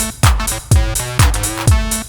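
Behringer RD-9 drum machine playing a steady four-on-the-floor kick, about two beats a second, under a Behringer TD-3 bass synthesizer's acid bassline of short pitched notes changing between the beats.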